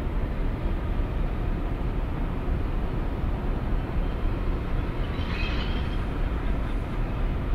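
Steady low rumble of the Mega Express ferry's engines as the ship comes in, with a brief higher-pitched sound a little past the middle.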